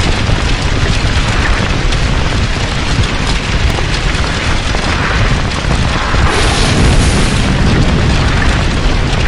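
Loud fire-and-explosion sound effects, a dense blast with a heavy low end, with a brighter rush about six and a half seconds in.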